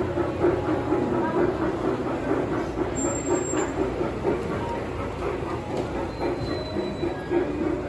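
G scale model steam train running along an elevated track, with a steady rhythmic clatter of several beats a second.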